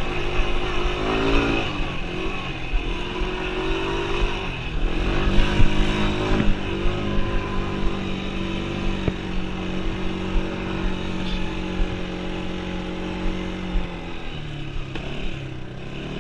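Yamaha Breeze 125 quad's small single-cylinder four-stroke engine running under way as the ATV is ridden. The revs climb and drop with the throttle several times in the first few seconds, hold steady for a long stretch in the middle, then fall lower near the end as it slows.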